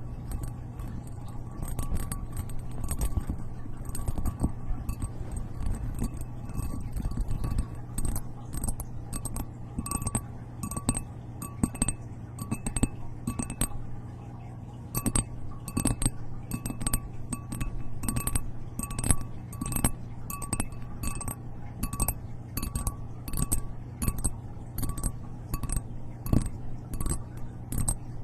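ASMR tapping and clinking on hard, glassy objects: quick irregular taps, a few a second, growing denser after about 8 seconds, over a steady low hum.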